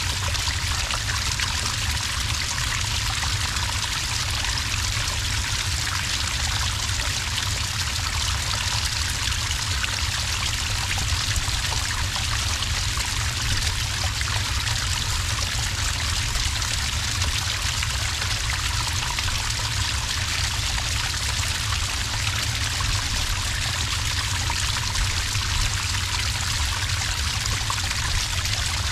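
Small cascade of water pouring onto sand, a steady, unbroken rush of flowing and splashing water.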